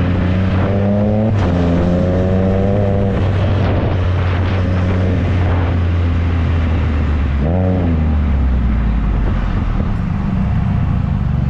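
Can-Am Spyder F3's three-cylinder engine under way. It pulls up through two gears in the first three seconds, each a rising note, then settles into a steady low drone. A quick rev rises and falls about eight seconds in.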